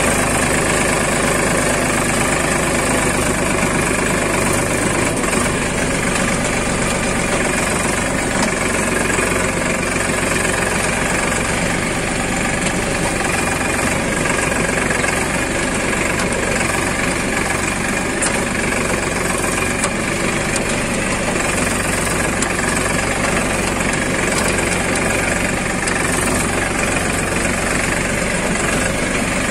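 Escort tractor's diesel engine running steadily, heard close up from the driver's seat while the tractor pulls a disc plough through the soil.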